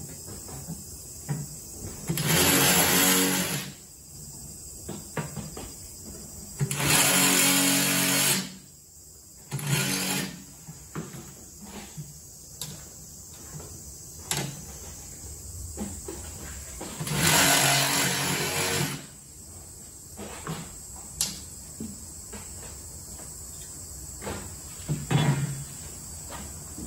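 Handheld power tool running in four short bursts of one to two seconds each, with scattered clicks and knocks of handling between them.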